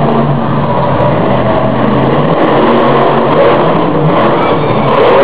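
Monster truck's supercharged V8 engine running loud and revving up and down as the truck drives over crushed cars.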